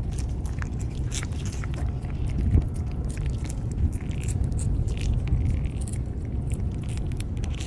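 Stray cats eating wet cat food: quick, irregular chewing clicks, over a steady low rumble.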